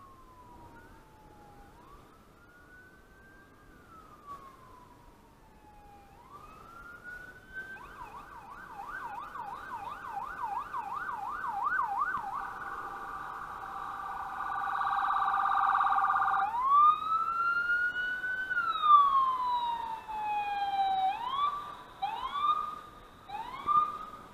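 Electronic emergency-vehicle siren getting louder as it approaches: slow rising and falling wails, switching to a fast yelp about a third of the way in, then a rapid warble, then long wails again broken by short quick whoops near the end.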